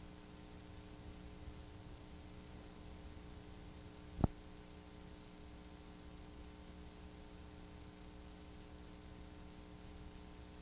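Steady hiss and low hum from a blank stretch of videotape playing back, with a single sharp click about four seconds in.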